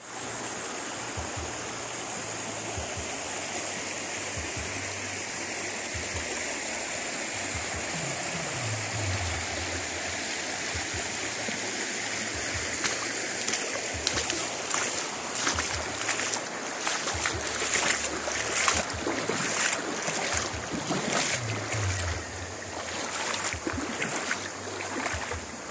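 Shallow stream flowing steadily over a stony bed, with irregular crunching steps on the gravel bank from about halfway.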